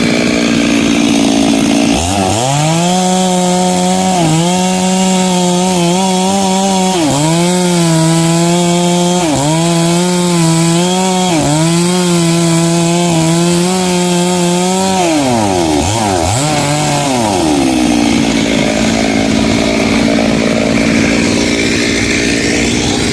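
Chainsaw revved up about two seconds in and run at full throttle, cutting wood, its pitch dipping briefly several times as the chain bites. Near the end the throttle is released and it falls back to a steady idle.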